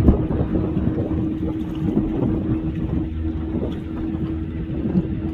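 Motorboat engine running steadily in the harbour, a low hum with a constant tone. A brief sharp sound right at the start.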